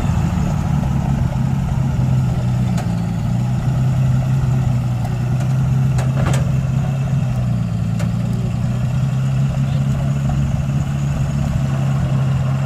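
Engine of an old crane truck idling steadily, an even low drone that holds through.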